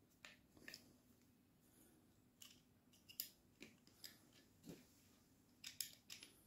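Faint, irregular clicks and taps of long Torx bolts knocking against the metal housing of a Centurion D5 Evo gate motor's electric motor as they are fed through it by hand. The motor's magnets keep pulling the bolts to the sides.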